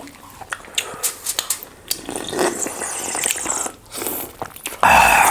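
Close-mic eating sounds: biting and chewing fried meat lollipops, with wet clicks and smacks. A loud, brief noise comes just before the end.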